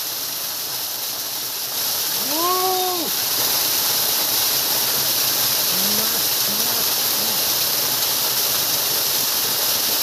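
Small waterfall pouring into a shallow pool, a steady rushing splash. A person's voice gives one drawn-out call that rises then falls about two seconds in, and a few short vocal sounds come around six seconds.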